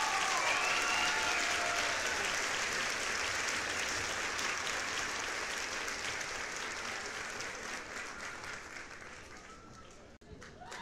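Applause, a dense patter of clapping with a few high children's voices calling out near the start; it eases off toward the end and cuts out briefly before starting again.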